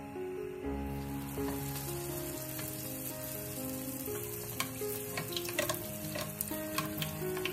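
Petulla dough frying in hot oil in a shallow pan: a steady sizzle with sharp pops and crackles that starts about a second in, as the dough goes into the oil, and carries on while hot oil is spooned over it. Soft background music plays under it.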